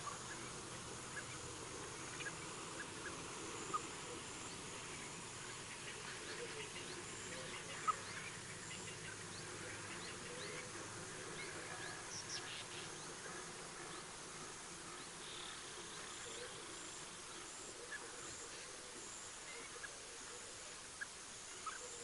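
Steady natural ambience of an insect chorus, with a high trill that keeps breaking off and starting again. Scattered short sharp ticks stand out, the loudest about four and eight seconds in, and a few brief high chirps come near the middle.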